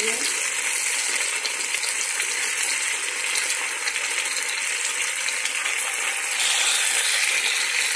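Mutton karahi gosht sizzling in a non-stick wok with a steady frying hiss, a little louder from about six seconds in.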